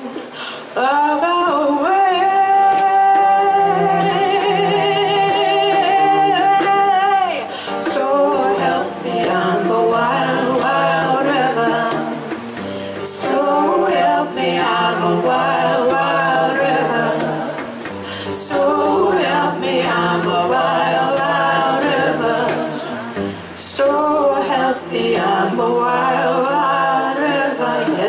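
Live folk music: several voices singing in harmony, with one long held note with vibrato a couple of seconds in, over a bowed cello and hand-drum strokes.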